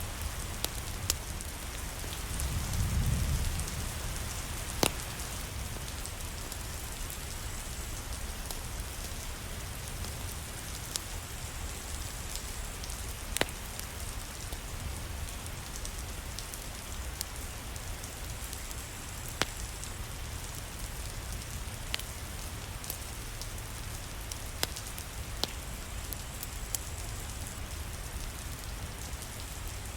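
Steady rain falling, with a dozen or so sharp crackles and pops from a fireplace scattered through it. A brief low rumble swells and fades about three seconds in.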